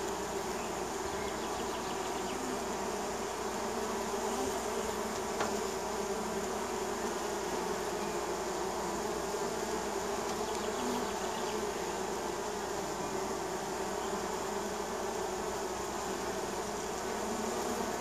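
Steady buzzing of many honey bees flying in and out of a hive entrance.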